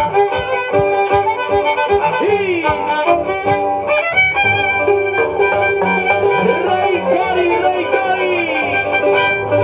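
Violins playing a lively carnaval tayacajino (tipaki tipaki) tune, with sliding notes over a steady pulse.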